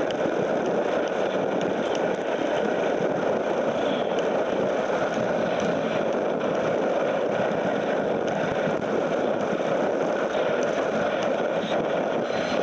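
Mountain bike tyres rolling over a hard-packed gravel fire road, a steady rough rolling noise picked up by a camera mounted on the handlebars.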